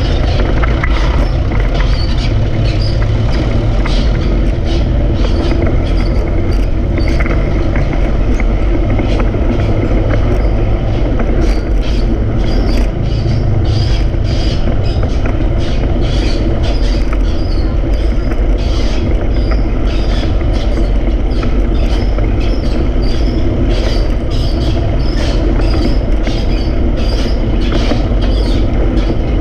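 Riding noise from a BMX bike on a city street: a steady low rumble of wind buffeting the camera's microphone, with continual rattling clicks from the bike and camera mount over the road surface.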